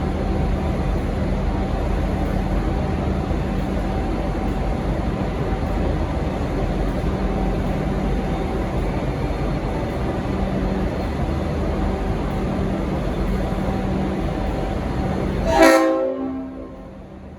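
Diesel locomotive running steadily as it pulls out. Near the end comes a short blast on its Leslie RS5T multi-chime horn, then the sound drops away abruptly.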